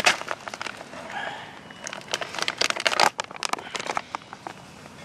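Plastic pouch crinkling as maggot-glue powder is poured into a bucket of maggots and gravel, then a gloved hand stirs the mix with gritty rustling and clicks, busiest about two and a half to three seconds in.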